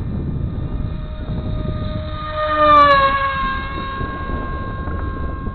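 RC Bixler's electric pusher motor and propeller whining in flight with a rough, sickly tone, which the owner puts down to the poor-quality stock propeller. About three seconds in, the whine swells and drops in pitch. Wind rumbles on the microphone throughout.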